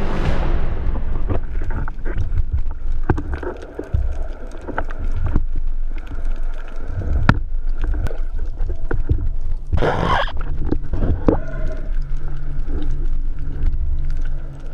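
Underwater sound heard through a camera housing: a steady low hum with scattered clicks and knocks as a speargun and a speared fish on its shaft are handled. A short hissing rush comes about ten seconds in.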